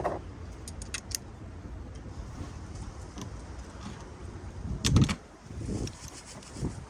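Hand tools clinking against metal, with a few sharp clicks about a second in and a heavier knock about five seconds in, as a spark plug is worked loose from the engine.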